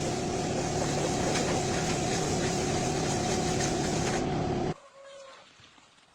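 A machine running steadily with a constant hum over a wide noise, stopping abruptly just under five seconds in, followed by a much quieter background.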